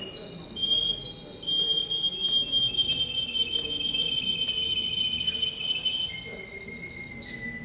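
Male canary singing: a long, rolling high trill held for several seconds, switching to a higher, faster-pulsed trill about six seconds in.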